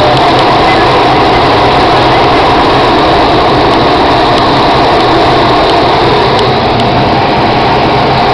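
Steady rush of air around a glider's canopy during an aerotow, mixed with the constant drone of the tow plane's engine ahead.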